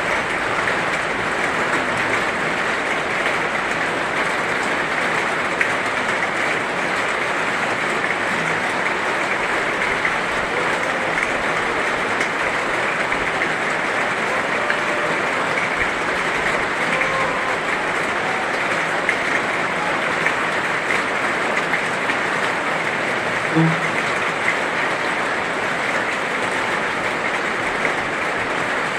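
Heavy rain falling steadily, a dense even hiss with no let-up, with one brief faint knock about three-quarters of the way through.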